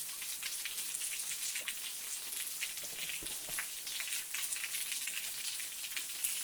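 Thin trickle of a small waterfall splashing down in many separate drops, a steady hiss with constant small pattering ticks.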